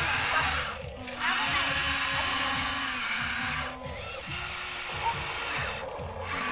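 Huina RC excavator's electric motors and gear drives whirring as the boom and bucket dig into dirt, stopping briefly about a second in, near four seconds and near six seconds between movements.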